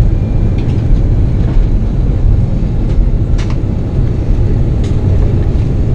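Airbus A330-300 cabin noise while the airliner rolls on the ground after landing: a loud, steady low rumble from the wheels and engines, with a few faint clicks.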